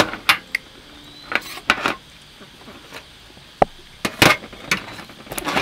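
Irregular sharp clicks and knocks of hard objects being handled, loudest at the very start and about four seconds in.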